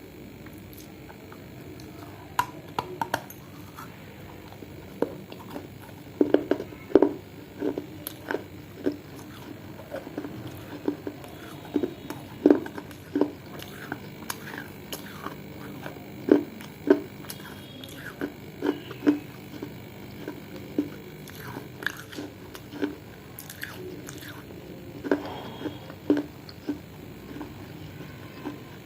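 Someone biting and chewing dry baked clay: edible Punjabi clay and pieces of clay pot crunching between the teeth in many sharp, irregular crunches, starting about two seconds in.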